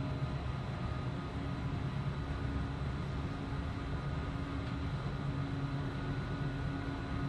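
Steady running noise heard inside a Swiss S-Bahn commuter train moving at speed: a constant low rumble from the wheels and track, with a faint steady hum over it.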